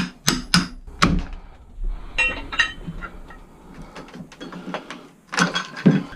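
Knocks and clatter of hand-tool demolition work. A few sharp knocks come in quick succession in the first second or so, then scattered clicks and rattles, and more knocks near the end.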